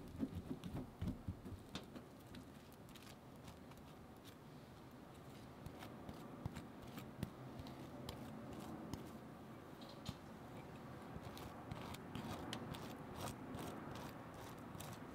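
A table knife mixing and then spreading sauce over a slice of soft white bread: soft knocks and a faint repeated scraping, with light clicks of the blade that come more often near the end.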